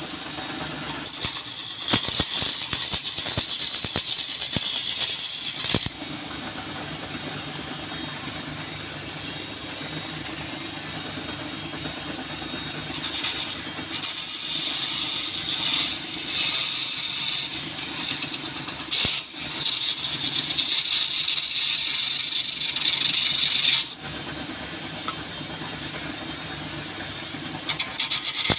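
Wood lathe running with a steady hum, while a turning tool cuts the spinning wood in bouts of loud hissing, scraping noise that start and stop abruptly: a long cut in the first few seconds, a longer one from about a third of the way in, and another near the end.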